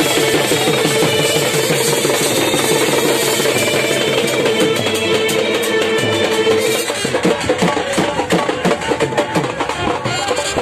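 Loud dance music with drums. About seven seconds in the sustained melody drops away and the drum beats come to the fore.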